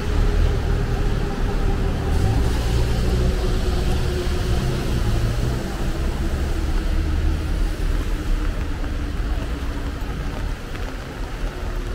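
Road traffic on a rain-wet street: a motor vehicle's low engine rumble under a steady hiss, slowly fading toward the end.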